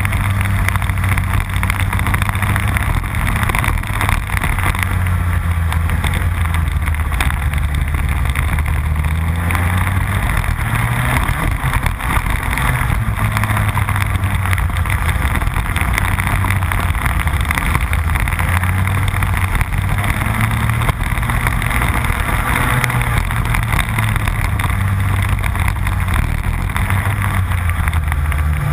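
Rotax Max 125cc two-stroke kart engine at racing speed, heard on board, its pitch rising and falling as the kart brakes into corners and accelerates out of them.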